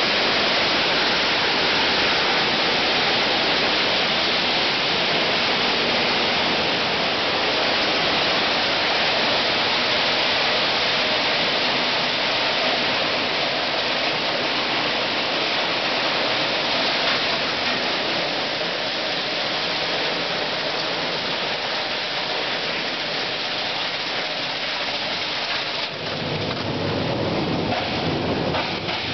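Plastic bottle label-removing machine running, the bottles tumbling and rattling against each other inside its drum: a loud, dense, steady clatter. Near the end a lower rumble joins in.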